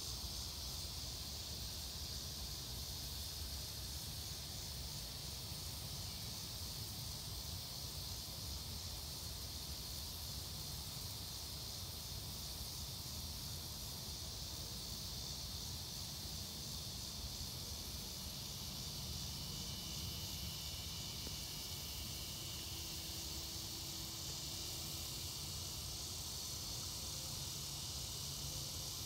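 Lawn sprinklers spraying water with a steady hiss, over a continuous high chorus of cicadas and crickets.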